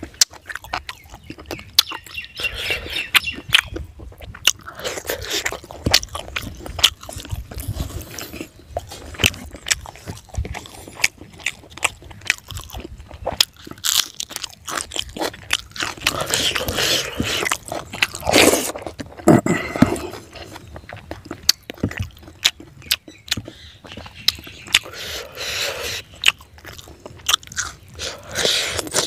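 A person chewing and biting into food eaten by hand: rice, a green chilli and leafy greens. There is constant crunching with many sharp clicks of bites and mouth sounds, and louder chewing stretches about two-thirds of the way in.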